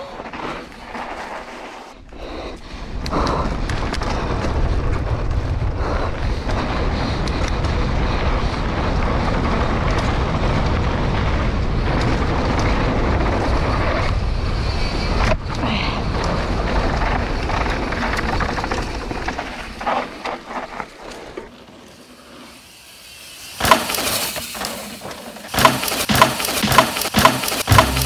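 Wind rush on the mic and the rattle of a Scott Gambler downhill mountain bike running fast down a dirt forest trail, tyres rolling over dirt and a wooden slat section. After a quieter spell near the end comes a string of sharp clicks and knocks as a rider passes.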